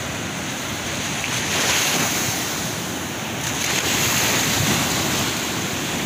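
Sea waves washing up a sandy beach: a steady hiss of surf that swells twice, about a second and a half in and again about four seconds in, as water rushes up the sand.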